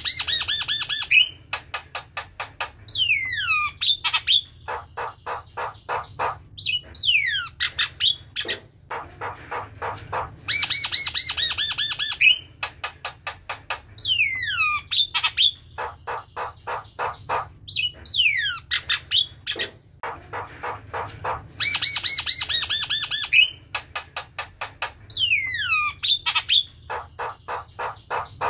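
Javan myna singing: fast runs of repeated harsh notes, then falling whistles and rattling chatter. The same sequence of phrases comes round about every ten seconds.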